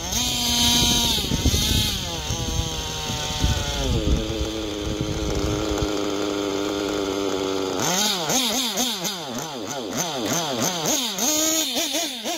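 A .21 nitro engine in an RC car, a Dynamite Platinum 21XP SH 8-port on a tuned pipe, running hard. Its pitch drops over the first couple of seconds, holds steady for a few seconds, then swings quickly up and down with the throttle over the last few seconds. The engine is freshly needle-tuned and pulls cleanly with no lean bog.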